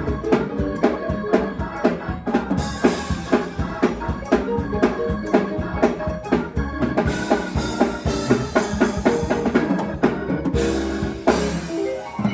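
Upbeat church music: a drum kit playing a fast, busy rhythm with bass drum and snare over held chords.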